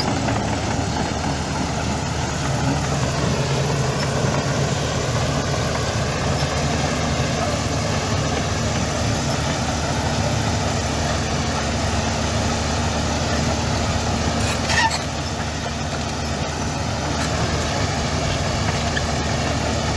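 Heavy diesel engine of earthmoving machinery running steadily at a constant speed, with one brief sharp sound about fifteen seconds in.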